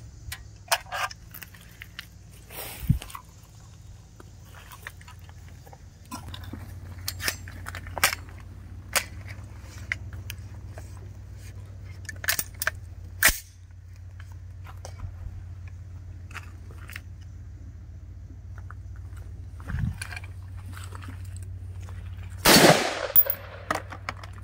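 AR-15 rifle shots fired one at a time at irregular intervals, a few seconds apart, with a louder burst of shots near the end.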